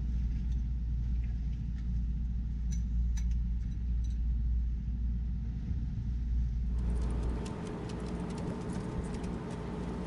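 Boat's engines running underway, a steady low drone heard from inside the cabin, with a few light clinks of crockery and cutlery. About two-thirds of the way through, the sound changes to the engines with a broader hiss of wind and water on the open foredeck.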